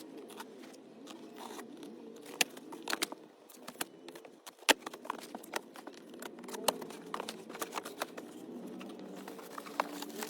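Handling noises: scattered clicks, knocks and crinkling of packaging as a loudspeaker is unpacked and moved about.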